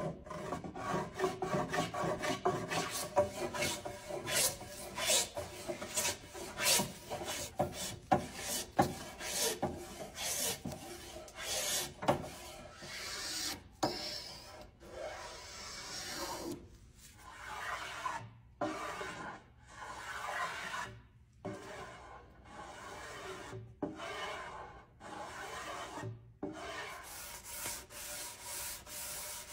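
Metal spokeshave shaving the edge of a wooden board, each stroke a short rasping cut as the blade lifts a long curled shaving. The strokes come quickly at first, then turn into longer passes with brief pauses between them in the second half.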